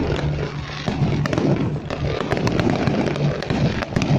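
Fireworks display: a rapid, irregular run of bangs and crackles over a continuous rumble of shells bursting.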